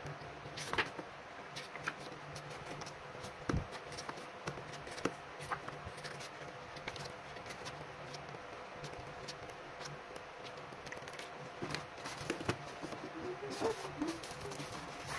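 Hands handling a K-pop album package: photobook pages riffled and flipped with paper rustling, then scattered clicks and taps from a plastic CD jewel case near the end.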